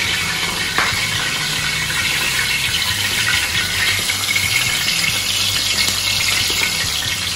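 Onion, scotch bonnet pepper and garlic frying in hot oil in a cast-iron skillet: a steady sizzling hiss with fine crackle. The brisk sizzle shows the oil is hot enough to fry in.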